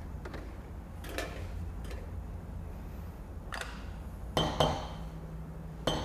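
A milk jug and crockery being handled: scattered light clinks and knocks, the loudest a close pair about four and a half seconds in that ring briefly, over a low steady hum.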